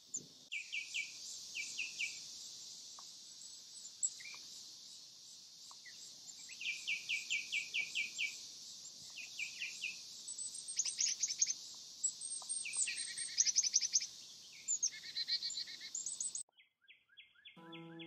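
Wild birds singing in the garden, with quick runs of repeated chirping notes several times over a steady high-pitched insect drone. The sound cuts off near the end and background music begins.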